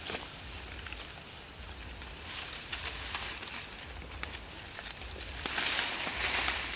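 Leaves and twigs rustling and crackling with many small snaps as monkeys move through the tree branches, swelling louder about two seconds in and again near the end.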